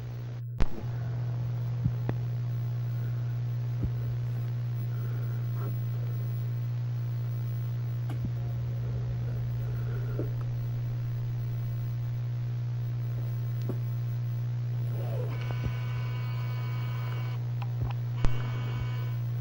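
Steady low electrical hum with a few faint clicks. About fifteen seconds in, a high whine made of several stacked tones joins it, breaks off briefly and then returns near the end.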